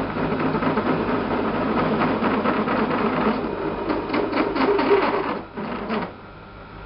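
Cosmos metal lathe turning a large-diameter metal bar at low speed, the tool clattering rapidly as it cuts to bring the stock round. About six seconds in the clatter stops, leaving only the lathe's quieter steady running sound.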